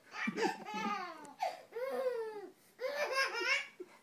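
Baby laughing and squealing in three high-pitched bursts, the pitch arching up and down within each.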